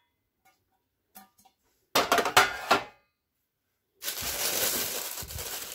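Metal pans clattering and clinking together about two seconds in, with a brief ringing. From about four seconds in, packaging crinkles steadily as it is handled.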